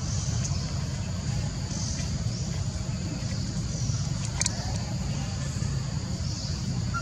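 Outdoor ambience: a steady low rumble under a high insect buzz that swells and fades, with a single sharp click about four and a half seconds in.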